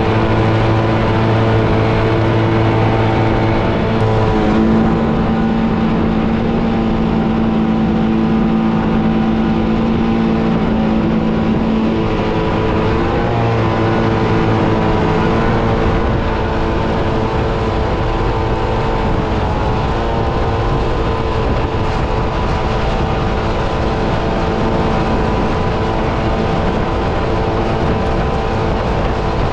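A vehicle engine running steadily and loud, its pitch shifting slightly a few times.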